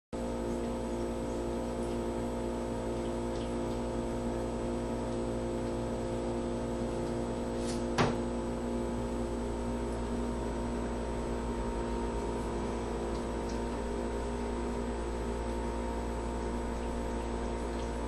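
A steady mechanical hum made of several fixed tones, with one sharp click about eight seconds in.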